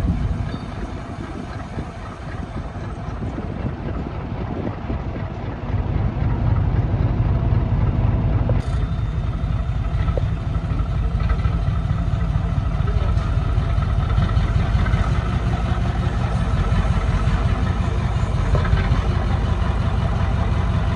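Diesel engine of a rebuilt cab-over truck idling steadily. It grows louder about six seconds in and then holds at that level.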